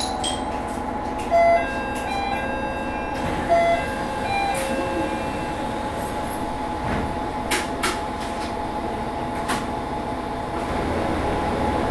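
Steady hum inside a Matsuura Railway MR600-class diesel railcar, with two short electronic beeps in the first few seconds and a few sharp clicks later on.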